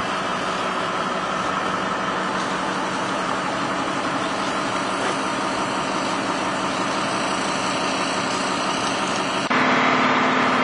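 Engines running steadily with a constant low hum. About nine and a half seconds in, the sound jumps suddenly louder to a closer, slightly higher-pitched hum of the excavator's idling engine.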